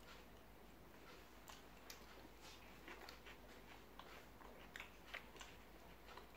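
Faint eating sounds: scattered soft clicks and crackles of chewing and of a piece of fried meat being picked apart by hand.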